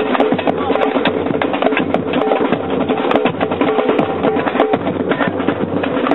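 Background music with busy, fast percussion: drums and wood-block-like clicks over a steady melody.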